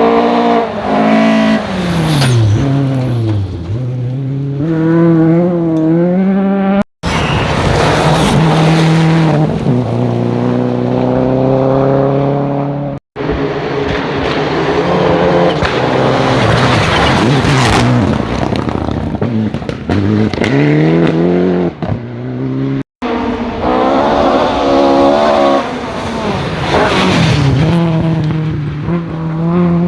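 Rally cars driven flat out on a special stage, engines revving hard, pitch dropping on downshifts and climbing again under acceleration as they pass. Several short clips are cut together, breaking off abruptly three times.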